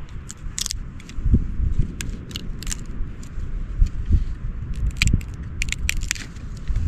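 Knife shaving a piece of wood to make kindling for a fire: irregular short scrapes and cracks, a dozen or so, over a low rumble of wind on the microphone.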